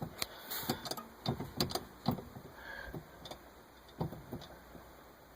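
Scattered light clicks and knocks at an uneven pace, several in the first two seconds and one more about four seconds in.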